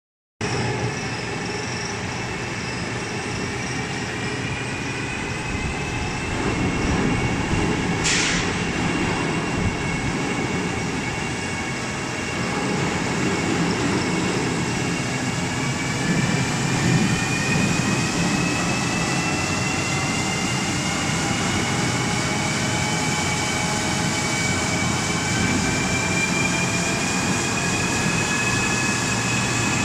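Paper wax coating machine running, its rollers and drive giving a steady mechanical rumble under several thin high whines that slowly rise in pitch from about halfway. A brief hiss sounds about eight seconds in.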